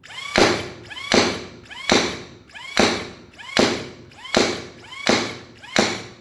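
AIT Max 40 Lightning foam dart blaster firing in semi-auto, eight sharp shots evenly spaced a little under a second apart, each followed by a brief ringing sweep.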